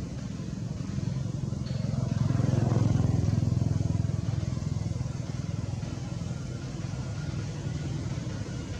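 Low engine hum of a passing motor vehicle, growing louder about two to three seconds in and then fading.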